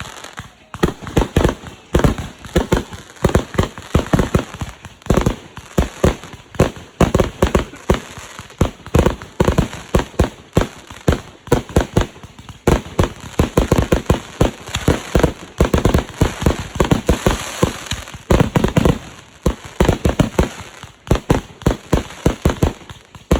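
Fireworks going off in rapid succession: a dense, irregular string of bangs, several a second, that keeps on without a break.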